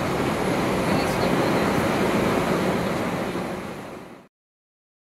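Vintage heritage tram running along street rails, a steady rumble of wheels on track. It fades and then cuts off abruptly into silence a little after four seconds in.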